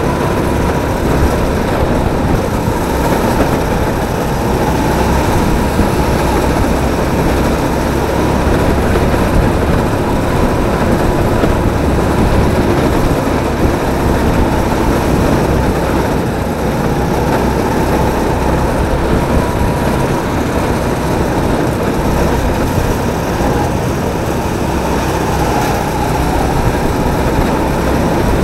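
Onboard sound of a drift kart driving at speed: a loud, steady running noise with a thin, steady whine through it.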